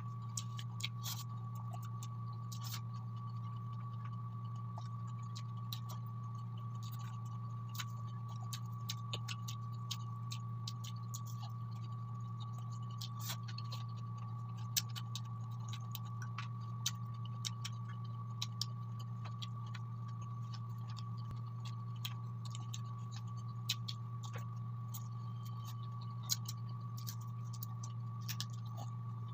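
Mukbang eating sounds: scattered small clicks and mouth sounds of chewing fried chicken wings and rice eaten by hand, over a steady low hum with a faint high tone.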